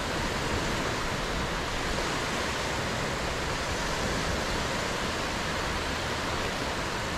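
Small ocean waves breaking and washing up a sandy beach: a steady surf hiss.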